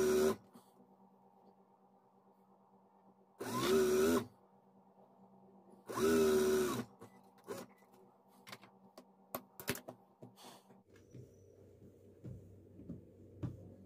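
Sewing machine stitching lace onto fabric in three short runs, each under a second, its motor whine rising and falling. A faint steady motor hum runs between the runs, followed by a few light clicks and soft fabric handling.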